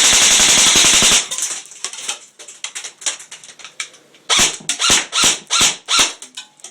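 GR15 airsoft rifle firing a full-auto burst that stops about a second in, followed by scattered light ticks of BBs bouncing around. In the second half come about six sharp, loud knocks, roughly half a second apart.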